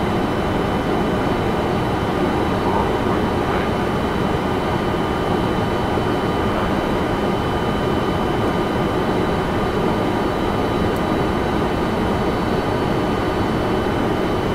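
Steady flight-deck noise of a Boeing 747-400ERF freighter: a constant rumble and hiss of the engines and airflow, with two faint steady high tones running through it.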